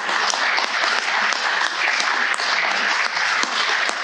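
Audience applauding: many hands clapping in a steady, even clatter.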